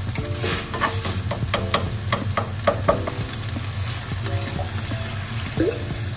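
Mince sizzling in a ceramic-coated frying pan while a plastic spatula stirs and scrapes it, with many quick scrapes in the first few seconds; water is then poured into the hot pan.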